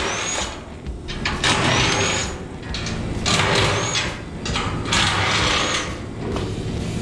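A handheld power tool runs in four short bursts of about a second each, undoing the mounting bolts of an aluminium fuel tank from underneath.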